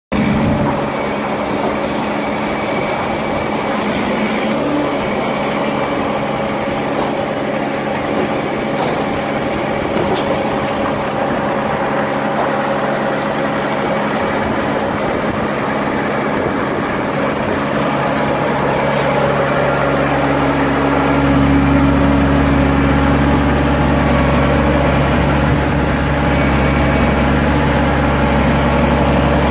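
Tamrock Ranger 500 hydraulic crawler rock drill running: a steady drone from its diesel engine and hydraulics, with a rough, busy noise over it. A louder low hum sets in about two-thirds of the way through.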